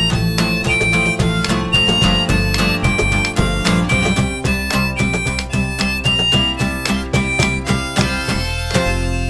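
Instrumental outro: strummed guitar with harmonica playing short held notes over it, ending on a final chord that rings out near the end.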